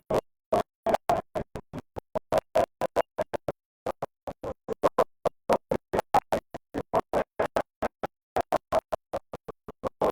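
Protesters' group chant or song, the audio broken into short choppy fragments about four or five times a second, with dead silence and a click at each cut.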